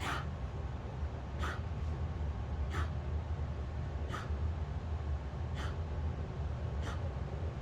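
A short, recently developed cough, repeating evenly six times, about once every second and a half, over a steady low rumble.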